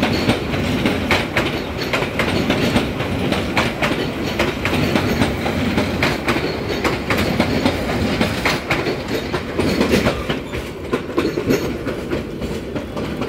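Old intercity passenger train coaches rolling past close by, their wheels clattering over rail joints in an irregular run of clicks over a steady rumble. The clatter eases near the end as the last coach moves away.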